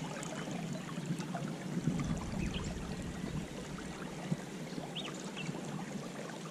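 River current flowing and lapping, a steady watery rush with a few faint scattered ticks.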